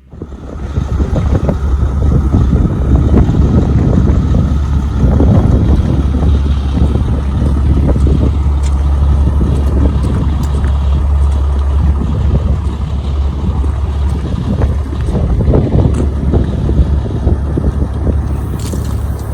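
A vehicle travelling on the road: a steady low rumble with wind buffeting the microphone.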